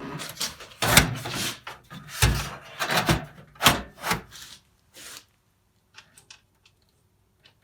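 A computer power supply unit being fitted into a PC case: a run of knocks and scraping for about five seconds, then a few faint clicks.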